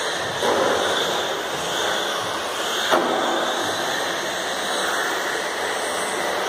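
Electric radio-controlled racing car running on an indoor carpet track: a steady hiss with motor whine that swells and fades as it laps, and one sharp knock about three seconds in.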